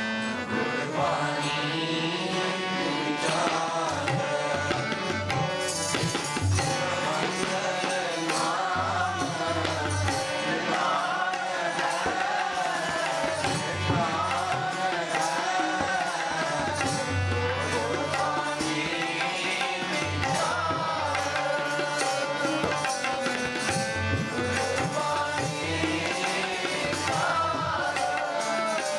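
Sikh kirtan: a voice singing a devotional hymn over harmoniums, with tabla drumming a continuous beat.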